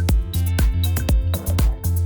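Electronic dance music with a steady, fast beat and a heavy bass line.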